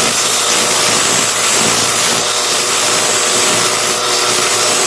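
Belt grinder running with a bayonet blade pressed against its worn abrasive belt: a steady, loud grinding hiss over the motor's hum.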